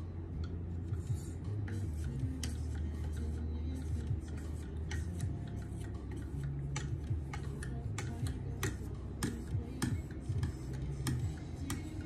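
A KME guided sharpener's stone carrier, fitted with oiled abrasive lapping film, stroked along an ESEE 4 knife's edge. It makes an irregular run of light ticks and scrapes, a few a second.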